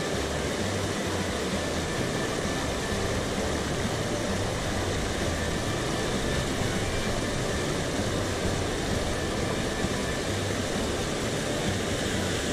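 Mountain stream running high after rain, its water rushing steadily.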